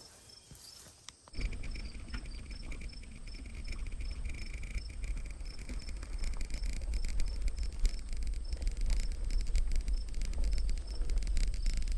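Insects chirping in a steady, even rhythm of high chirps. About a second in, a loud low rumble with crackling starts suddenly and keeps building.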